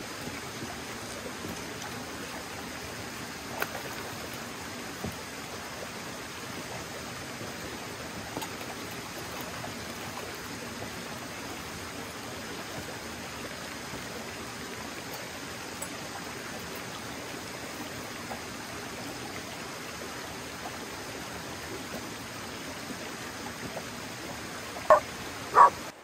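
Shallow creek water running steadily over rocks. Near the end a dog barks sharply twice, about half a second apart, at bears it has spotted.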